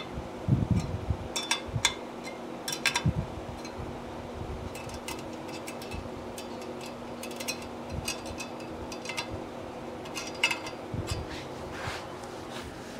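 Spoke wrench clicking and clinking against the steel spokes and nipples of a Yamaha YL-1 Twin Jet front wheel as spokes are tightened a little at a time to true the rim. The clicks come at irregular moments over a steady mechanical hum.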